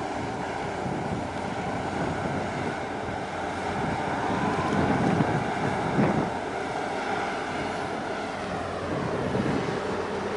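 Wind buffeting the microphone over a steady wash of choppy water, gusting louder about five to six seconds in.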